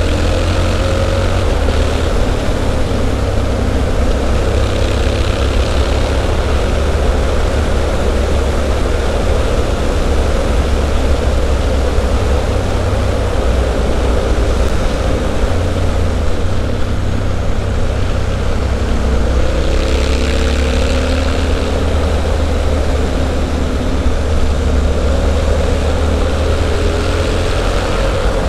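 Triumph Street Scrambler's 900 cc parallel-twin engine running through a Zard slip-on exhaust while the bike is ridden, with a steady deep exhaust note. The pitch climbs as it accelerates near the start and again about two-thirds of the way through.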